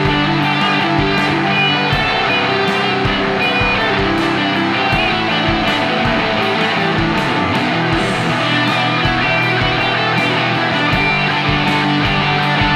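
Rock music with driving electric guitar and a steady drum beat.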